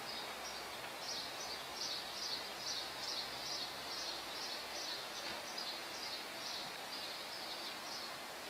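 Steady outdoor city background noise with a high, thin chirp repeated about twice a second from about a second in until near the end.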